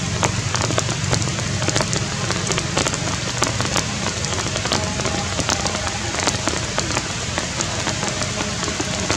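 Steady rain falling, a continuous hiss dotted with many sharp drop impacts.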